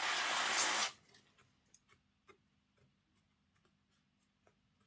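A short spray from an aerosol can of contact cleaner, a hiss lasting about a second, flushing waxy lubricant out of a model locomotive's gearbox. After it come a few faint light clicks of small parts being handled.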